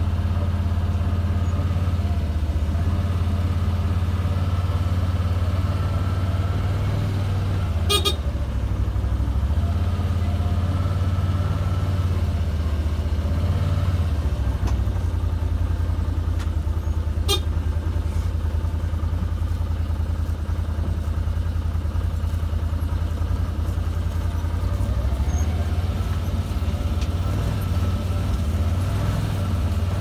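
Farm vehicle engine running steadily at low speed, a constant low hum, with two short horn toots about nine seconds apart.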